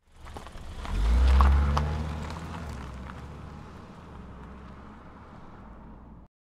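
Car-driving sound effect: a low engine rumble that swells to its loudest about a second in, then fades slowly away, with a few faint clicks, and cuts off suddenly near the end.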